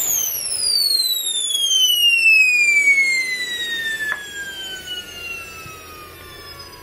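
Kingtech K-210 G4 micro turbine jet engine spooling down after shutdown. The combustion rumble cuts out at once, and a high turbine whine falls steadily in pitch as the rotor coasts down, fading. There is a single click about four seconds in.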